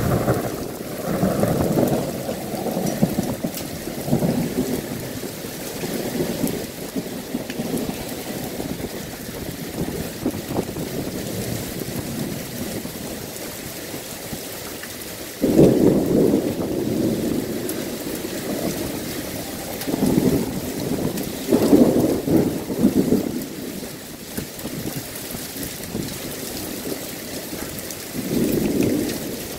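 Heavy rain falling steadily in a thunderstorm, with thunder rumbling several times. A rumble comes at the start, a sudden loud peal about halfway through, and further rumbles in the second half and near the end.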